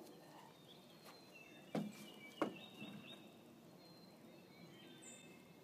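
Two wooden knocks about two-thirds of a second apart: a big stick carried crosswise in a dog's mouth bumping against the railing of a narrow footbridge. Birds chirp faintly in the background.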